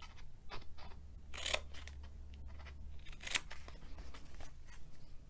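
Scissors snipping into cardstock, a few separate short cuts into the score lines of a paper box blank.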